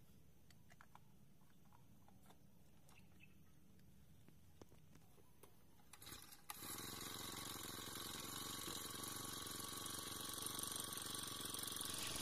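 Faint handling clicks, then about six seconds in a pull on the recoil starter of a Honda four-stroke brush cutter. The engine catches at once and runs steadily.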